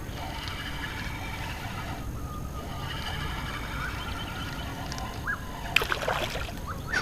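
Steady low wind and water noise around a kayak, with a cluster of sharp clicks and knocks about six seconds in.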